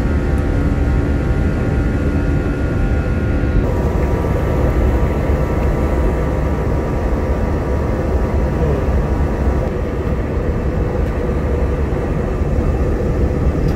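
Steady cabin noise of a jet airliner climbing shortly after takeoff: a constant engine and airflow rumble with faint steady whining tones, whose pitch pattern shifts slightly about four seconds in.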